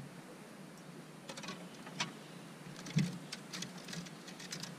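Irregular light clicks and taps of fishing tackle being handled on a bass boat's deck, with one louder knock about three seconds in, over a low steady hum.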